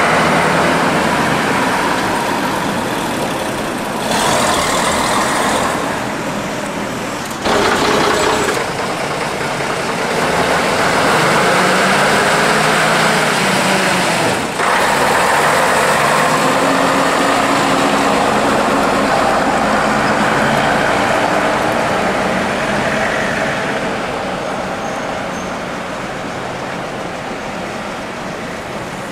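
Diesel engines of vintage buses running and moving off along a street, a steady engine drone with passing road traffic. The sound changes abruptly three times.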